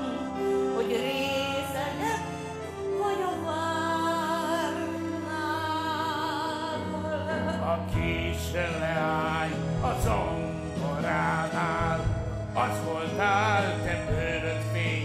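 Stage singing with wide vibrato over instrumental accompaniment, part of a man-and-woman duet from a stage musical.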